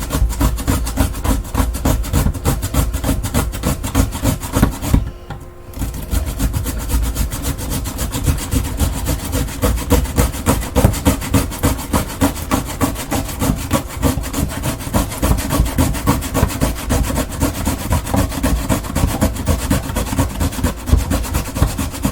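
Idaho baking potato being shredded on a mandoline's grating blade: rapid, repeated rasping strokes that stop briefly about five seconds in.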